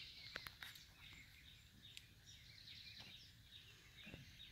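Faint outdoor ambience with quick, repeated bird chirps, and a couple of small clicks in the first second.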